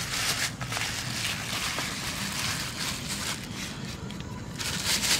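Thin black plastic bag crinkling and rustling in uneven bursts as hands open it and empty it out.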